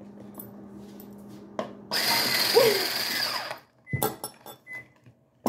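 Electric hand mixer running in a short burst of about a second and a half, starting about two seconds in, followed by a few sharp clicks and knocks.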